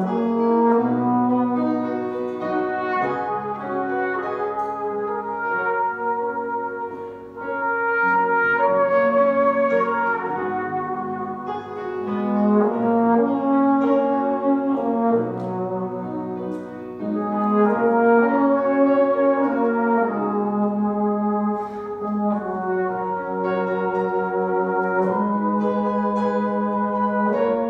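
Flugelhorn and euphonium playing a duet, the flugelhorn carrying a higher line over the euphonium's lower part, in long held notes that change every second or two.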